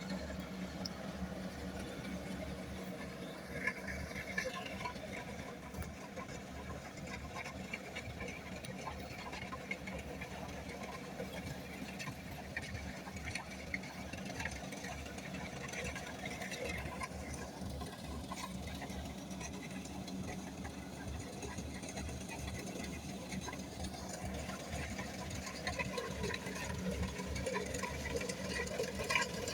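Kubota rice combine harvester running steadily, its engine giving a fast, even chatter with some rattle from the machinery.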